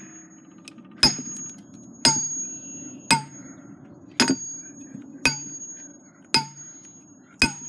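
Hammer striking an opened lava lamp's glass bottle, seven sharp blows about one per second, each leaving a brief high ring: knocking the hardened wax loose.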